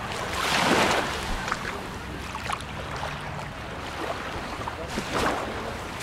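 Small waves washing up on a pebbly sand shore over a steady surf hiss, with a louder wash about half a second in and another about five seconds in.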